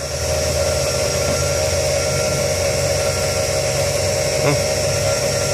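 A motor running with a steady hum, with a brief tap about four and a half seconds in.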